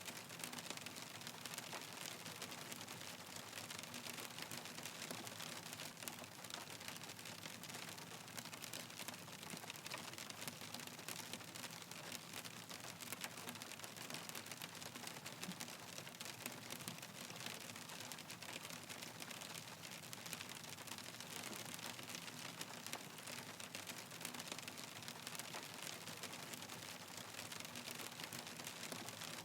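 Hail falling steadily: a dense, even patter of many small hailstone clicks, with no let-up.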